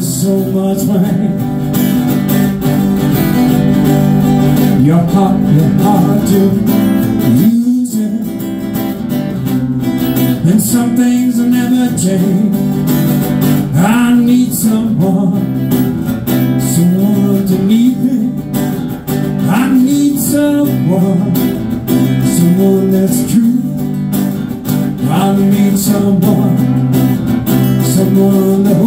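Solo acoustic blues: a PRS acoustic guitar strummed and picked, with a man singing along into the microphone.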